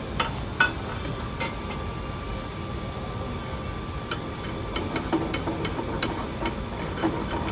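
Scattered metal clinks and knocks as steel clamps and tools are handled on a Ford Model T engine block, two sharp ones near the start and a run of them in the second half, over a steady background hum with a faint steady tone in the first half.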